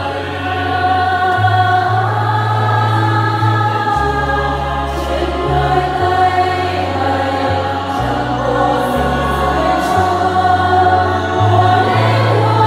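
Church choir singing a Catholic hymn in Vietnamese, many voices together over steady low bass notes that change every second or two.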